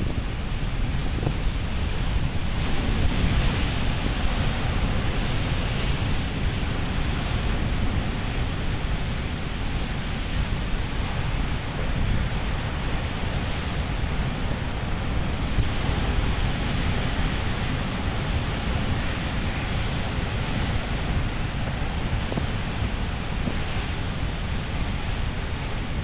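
Pacific Ocean surf breaking on a rocky shore: a continuous rush of waves and foam that swells and eases as sets come in, with wind buffeting the microphone.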